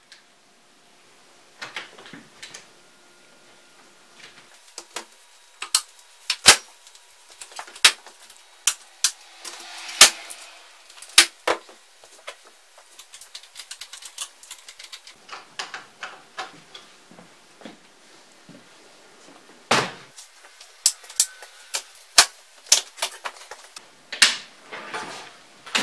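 Ski bindings and boots being worked on at a workbench: irregular sharp clicks and knocks of plastic and metal parts being handled and snapped into place, with a few louder knocks scattered through.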